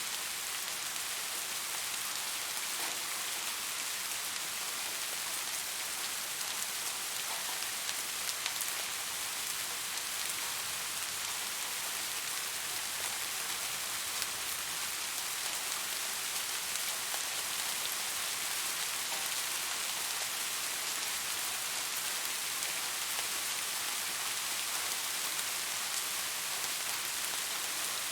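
Steady rain falling on a surface, an even hiss with faint scattered drop impacts.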